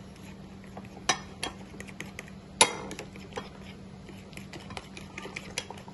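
Metal cutlery clinking and knocking against bowls: scattered light clinks, with two louder knocks about one second and two and a half seconds in.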